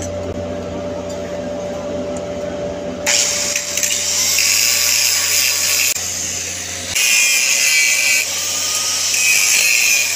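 Angle grinder grinding the weld on a carbon steel pipe joint. It starts about three seconds in with a harsh, high grinding noise and lets up briefly about halfway through.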